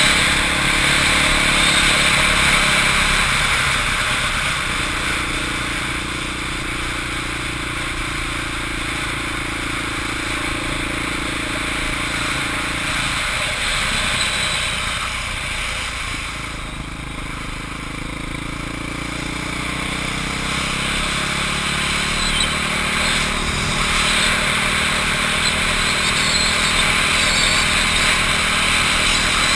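Motorcycle engine running under way, with wind noise on the microphone. About halfway through the engine eases off and quietens, then picks up again, its pitch rising toward the end.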